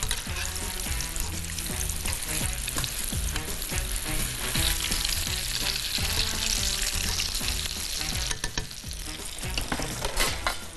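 Coconut-coated tuna kofta deep-frying in plenty of very hot oil: a steady, crackling sizzle, with a few clicks near the end.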